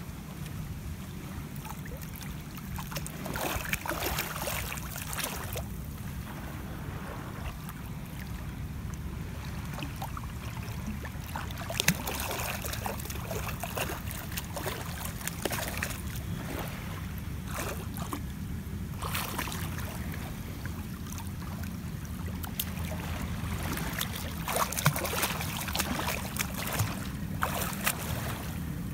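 Shallow seawater splashing and sloshing irregularly as a person moves and kicks in it, with a cluster of splashes near the end, over a steady low rumble of wind on the microphone.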